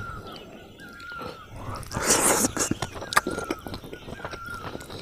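Close-up eating sounds of a person chewing cooked fish head: wet chewing and lip-smacking with many small sharp clicks, and a louder noisy rush about two seconds in.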